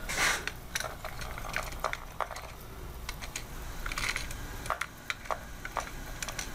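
Irregular small clicks and scrapes of a telephone tone probe tip and fingers moving over the metal clips of a 66 punch-down block while hunting for a toner's signal. A louder scrape comes at the start and another about four seconds in, over a faint low hum.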